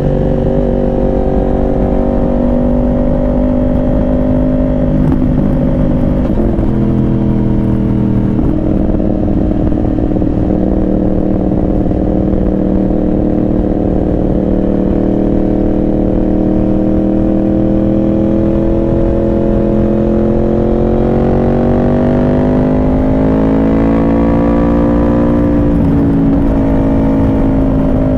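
Yamaha R1 inline-four sport bike engine under way. Its pitch drops in two quick steps early on as gears change, holds steady at a cruise, then climbs slowly under acceleration and drops again near the end at another upshift. Low wind rush runs underneath.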